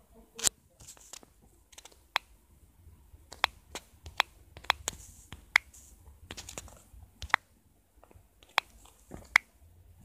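A string of irregular sharp clicks and taps, some fifteen in all and unevenly spaced, with faint rustling between them.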